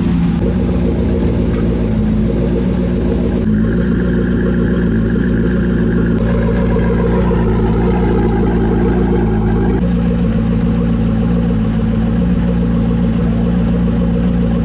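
An engine idling, a loud steady drone that holds its level throughout.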